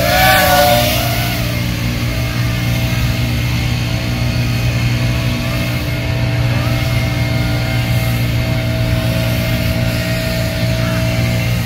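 FPV quadcopter's brushless motors and propellers whining; the pitch swoops up and down with throttle changes in the first second or so, then holds a steadier tone over a constant low hum.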